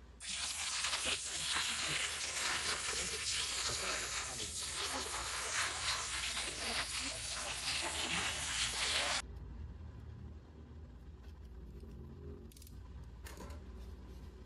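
Utility knife blade scraping and slicing along the seam between a clear acrylic display case cover and its black plastic base. It is a continuous scratchy rasp for about nine seconds that stops abruptly, followed by a few faint plastic handling clicks.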